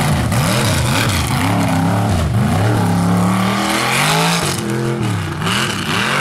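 Mega truck's engine revving hard in quick blips, about two a second, its pitch swinging up and down. Near the middle it is held at high revs for about a second and a half, then the blips resume.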